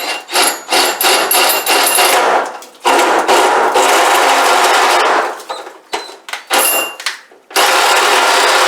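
Electric drill running a 1.5-inch hole saw through the sheet-metal trunk lid of a 1970 Dodge Challenger. It opens with rapid rattling and chattering, then runs steadily under load in two long spells, the second starting about three quarters of the way in.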